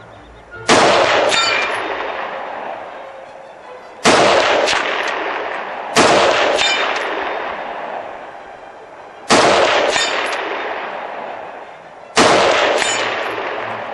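Five rifle shots fired at an irregular, unhurried pace, each echoing away over two to three seconds across the valley. Each shot is followed shortly by brief high rings from a steel target being hit downrange.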